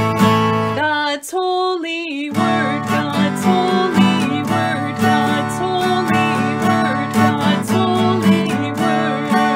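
Music for an opening church song, with strummed acoustic guitar. The low notes drop out briefly about a second in, then come back.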